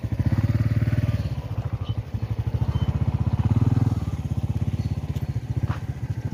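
A small engine running with a fast, even beat, its loudness swelling and easing twice.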